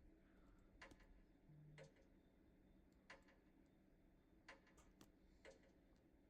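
Near silence with faint, irregularly spaced clicks: taps of someone typing a text message on a phone.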